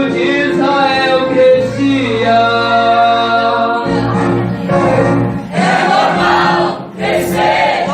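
A choir singing a gospel hymn with instrumental accompaniment, voices holding long notes over a steady bass line.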